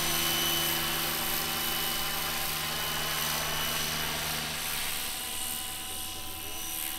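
Electric scale model SA 315B Lama helicopter flying overhead: a steady rotor and electric-motor whine with a high steady tone.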